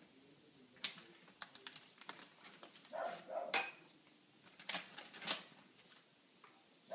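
Scattered light clicks and crinkles of a plastic measuring cup and a plastic zip bag being handled, loudest about three and a half seconds in.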